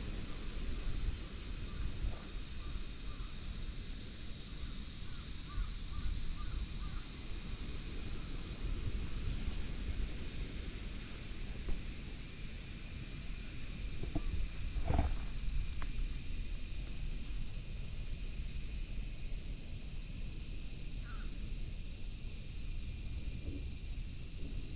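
Outdoor ambience: a breeze rumbling on the microphone under a steady high hiss, a few faint bird chirps, and a crow cawing about fifteen seconds in.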